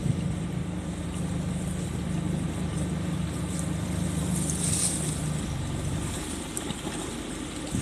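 Boat engine running at low speed with a steady low hum, easing off about six seconds in. A brief hiss comes in the middle.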